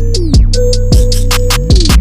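Background hip hop-style electronic music with a steady drum-machine beat: deep kick drums that drop in pitch, quick hi-hat ticks and a held synth note.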